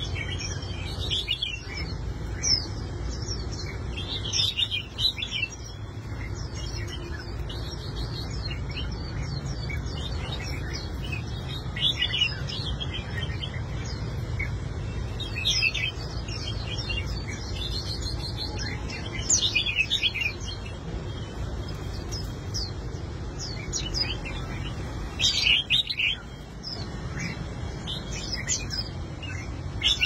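Caged songbirds chirping and twittering in quick, high, overlapping phrases throughout, with a steady low rumble underneath.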